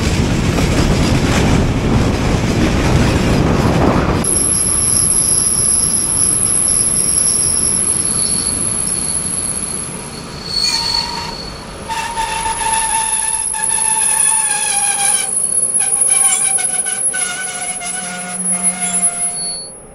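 Passenger train running over the rails with a loud rumble, then high-pitched wheel squeal from about four seconds in as it brakes. The squeal tones slide slowly down in pitch as it slows, and the sound stops abruptly as the train halts near the end.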